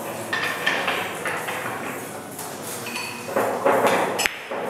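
One sharp click of a pool shot near the end, the cue striking the cue ball and the balls knocking together on the table, over steady room noise.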